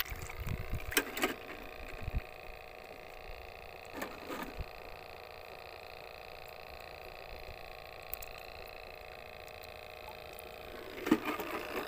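Hand sloshing and splashing in shallow seawater in a few short bursts while grabbing a live shrimp. A steady faint hum runs underneath.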